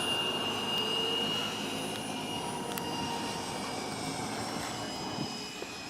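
Electric ducted-fan RC jet whining in flight: a steady high-pitched whine that drifts slightly lower and fades a little.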